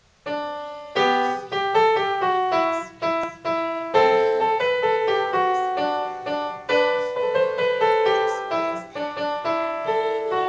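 Upright piano playing a Christmas carol tune, starting about a third of a second in. The notes and chords are struck one after another and left to ring.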